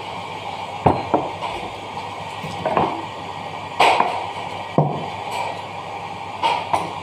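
Metal mixer parts and tools being handled on a workbench: about six separate knocks and clatters at irregular intervals, the loudest about four seconds in, over a steady background hiss.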